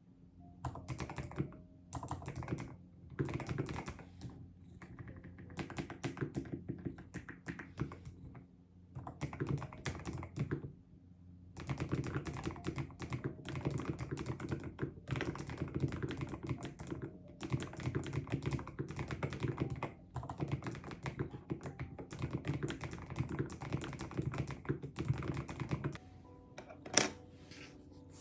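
Typing on a computer keyboard, fast runs of key clicks broken by short pauses, with one louder sharp knock near the end.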